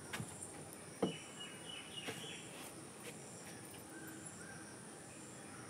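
Quiet rural ambience: a bird chirping a short run of high calls between about one and two seconds in, over a faint steady insect hum, with a couple of soft knocks near the start.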